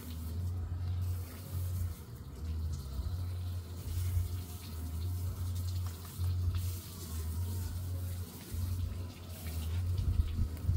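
Wind buffeting the phone's microphone: a low rumble that swells and drops in gusts every second or two.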